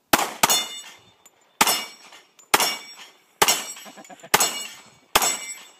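Pistol shots at steel targets, seven in a row about a second apart, each shot followed by the clang of a hit steel plate ringing out.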